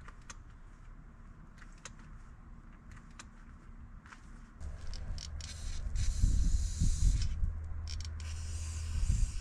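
Aerosol silicone spray hissing in two bursts of a second or two each, sprayed onto the rubber grommets of a pickup's front suspension to stop squeaks. A few faint clicks come before the spraying.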